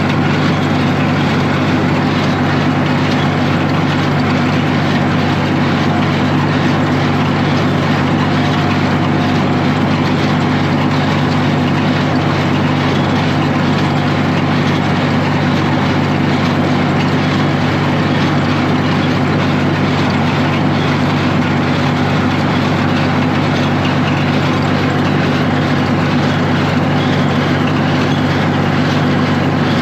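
Tractor engine running steadily under load with a New Holland 275 square baler working behind it. A loud, even machine drone with no breaks.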